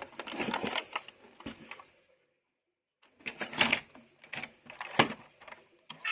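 Clicking and clattering of plastic toy vehicles and packaging being handled, in two stretches with a short silent gap between them.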